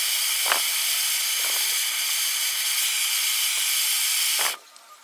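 Gas blowtorch hissing steadily as its flame heats a small steel router blade, then cutting off abruptly near the end.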